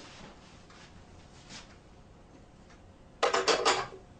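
Coins clattering through a circa 1930 two-piece payphone's coin mechanism: a quick run of loud metallic clinks lasting under a second, about three seconds in.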